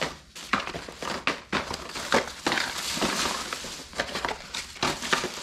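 Plastic bags and packaging crinkling and crackling as they are handled and rummaged through by hand, with many irregular sharp crackles.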